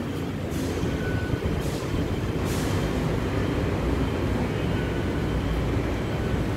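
Taipei Metro C301 heavy-rail train, steel wheels on steel rails, pulling into the station: a steady low rumble that grows slowly louder, with a few short hisses in the first seconds.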